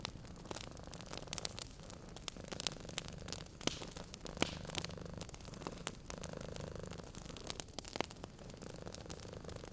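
Wood fire crackling with frequent sharp pops, over a cat's low purr that swells and fades in stretches of a second or two.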